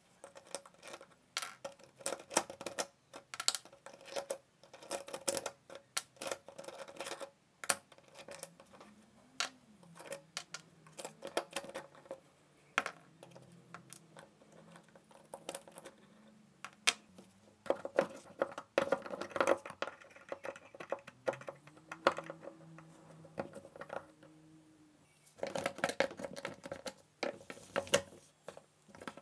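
Irregular small clicks, taps and light scraping from cordless drill gearbox parts being handled: a metal pick working inside the plastic ring-gear housing, then plastic and metal parts knocking together as the gearbox is fitted to the chuck near the end.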